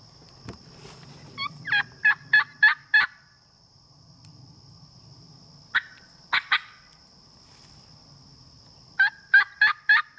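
Turkey mouth call run as a hen: a quick series of about six loud yelps, three more a few seconds later, and another series near the end.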